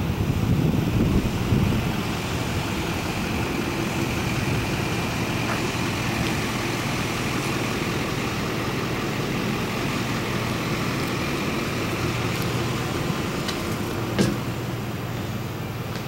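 Steady mechanical hum with a wash of outdoor noise, of the kind a running vehicle engine or traffic makes, with a rougher low rumble in the first two seconds and one sharp click about 14 seconds in.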